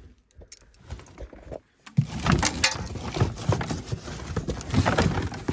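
Rummaging through a pile of stored items: a few faint clicks, then from about two seconds in, steady rustling and clattering of things being handled and moved.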